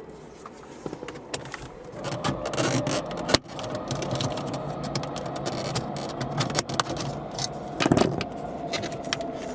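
A plastic trim removal tool scraping and prying at a plastic dashboard panel, with rattling and small clicks. There is a loud sharp snap about three and a half seconds in and another near the end: the panel's plastic retaining clips popping free.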